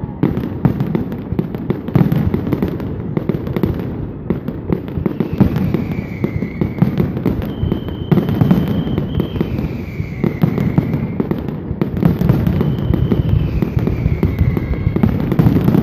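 Fireworks aerial shells bursting in a dense, continuous barrage, booms and crackle overlapping with no pause.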